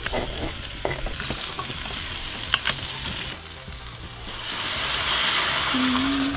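Potato and pumpkin cubes with onion and ginger sizzling in oil in a steel soup pot, stirred with a spoon that knocks a few times against the pot. The sizzle swells louder for the last couple of seconds.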